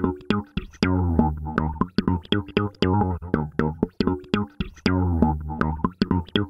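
Instrumental background music with a bass line and plucked, guitar-like notes over a steady beat.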